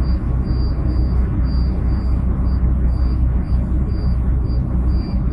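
Steady low road and engine rumble inside a moving car's cabin, with a faint high-pitched beep repeating about twice a second.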